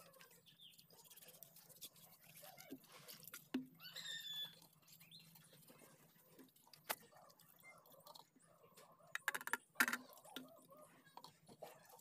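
Faint handling sounds of a paintbrush being washed in a small tin: scattered taps and clicks of the brush against the tin, with a few louder knocks near the end. A bird chirps briefly about four seconds in.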